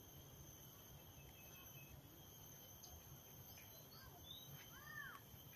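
Near silence: faint outdoor ambience with a steady high whine and a few faint bird chirps, the clearest a pair of short arched calls near the end.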